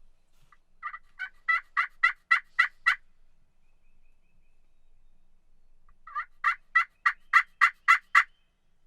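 Two series of turkey yelps, each eight or nine sharp notes at about three a second, getting louder through the series; the second series starts about six seconds in.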